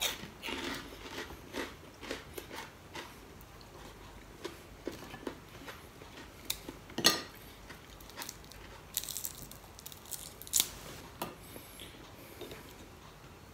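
A person chewing and biting crunchy fried dried fish (daing) eaten with rice by hand, with scattered sharp crunches and a tearing of the fish; the loudest crunches come about seven, nine and ten and a half seconds in.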